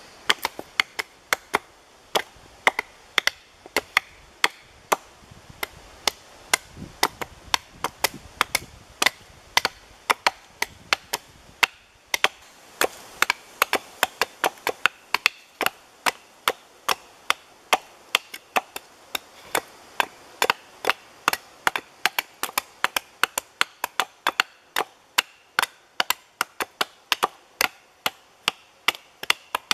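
Two hatchets chopping at wooden stakes held upright against a log: sharp wooden knocks in a quick, uneven rhythm of about three a second, the two choppers' strokes overlapping.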